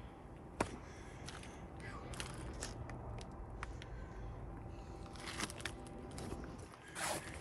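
Footsteps crunching and scraping over loose rubble and broken debris, with irregular sharp cracks and crackles.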